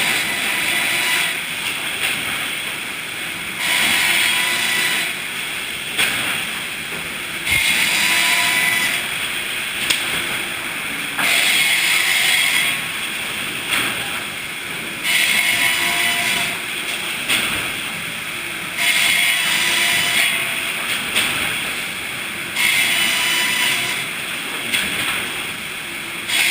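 Sawmill saw cutting eucalyptus hardwood in a repeating cycle: about every four seconds a cut of roughly a second and a half rises over the steady run of the mill machinery, seven times over.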